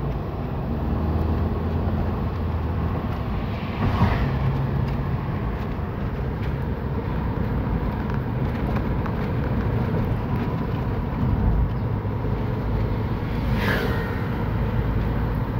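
Steady engine and tyre noise inside a Hyundai car's cabin while it drives at speed, with two brief louder swells of noise, about four seconds in and near the end.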